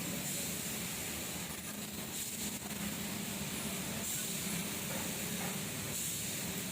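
Industrial sewing machine's motor running steadily: a low, even hum under a constant hiss.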